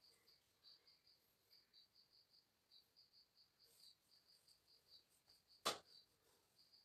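Faint chirping of a cricket, about three or four short high chirps a second, with one sharp tap near the end.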